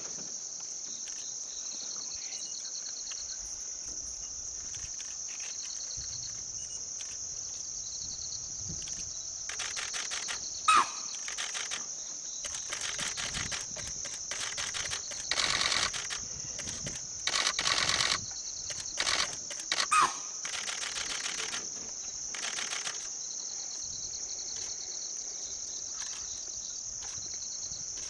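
Steady high-pitched chorus of insects such as crickets. In the middle stretch it grows louder in pulsing bouts, with two short sharp sounds, about eleven and twenty seconds in, that are the loudest.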